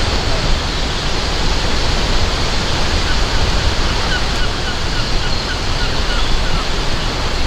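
Steady rushing of flowing water, with a few faint high chirps in the middle.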